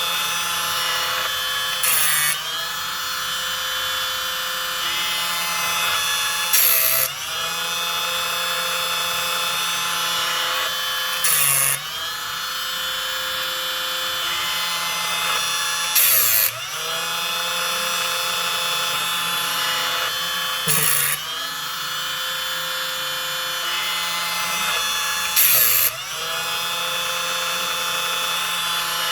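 Timber Tuff automatic chainsaw sharpener running steadily, its grinding wheel coming down on a cutter tooth six times, about every four and a half seconds. Each pass is a short, loud grinding rasp, with the motor's pitch dipping under the load.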